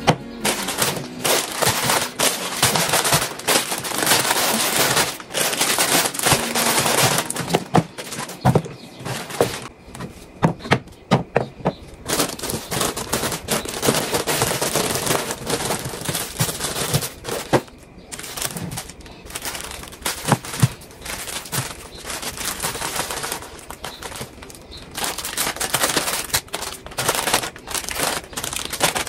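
Irregular clattering and knocking of packaged groceries and plastic organizer boxes being handled and set down on cupboard shelves, with many sharp clicks and knocks and noisy handling sound between them.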